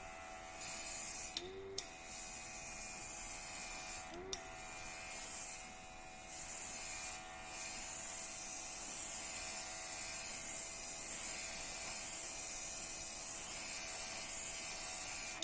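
Small cordless rechargeable air compressor running with a steady motor hum while the airbrush sprays thinned paint with a hissing rush of air. The hiss cuts out briefly about four times in the first eight seconds, then runs on steadily.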